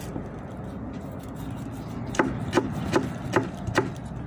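Kitchen knife cutting food: a low rubbing of the blade, then five sharp knife strokes about two-fifths of a second apart in the second half.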